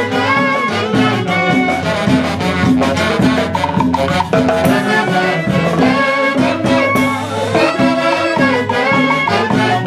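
Latin dance band music: a saxophone section playing melody lines over congas, timbales and drum kit and electric bass, in a steady, busy rhythm.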